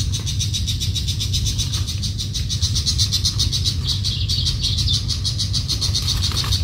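A high-pitched animal trill, a fast even pulsing of about ten beats a second, carries on steadily over a low rumble.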